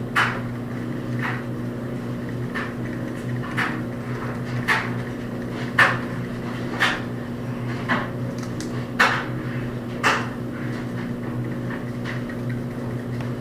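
A stirring utensil knocking and scraping against a mixing bowl about once a second while stirring a thick, creamy slime mixture, over a steady low hum.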